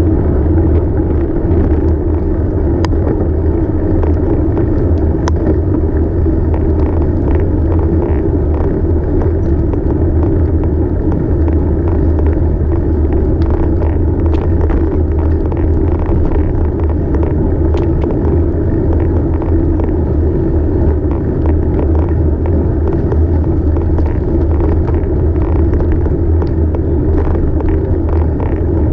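Steady wind and road rumble on a camera mounted to a moving bicycle, with frequent small clicks and rattles over the bumps in the lane surface.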